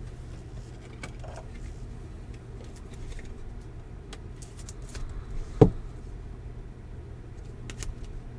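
Trading cards being flipped and slid through the hands, faint paper clicks and rustles, over a steady low hum. One short, loud sound about halfway through that drops in pitch.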